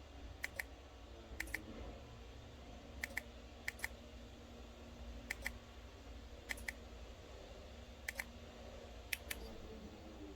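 Eight sharp double clicks at irregular intervals of about a second or so, over a steady low hum.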